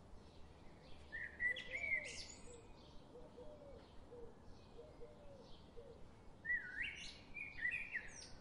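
Birds chirping: a quick burst of song about a second in and another near the end, with softer, lower repeated calls between them over a faint steady hiss.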